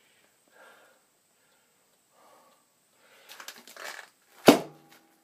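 Light metal clatter, then one sharp, loud metallic clang about four and a half seconds in that keeps ringing: metal striking metal while a wheel bearing is being driven off a Toyota rear axle shaft.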